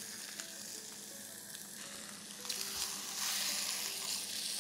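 Opened squid body searing in a red-hot oiled pan: a steady sizzle that grows louder about two and a half to three seconds in.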